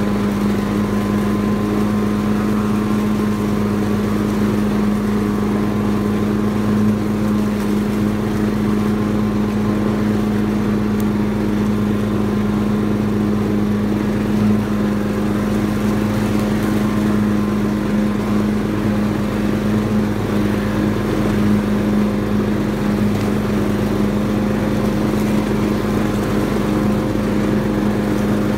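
Lawn tractor's engine running at a steady, even speed without revving up or down.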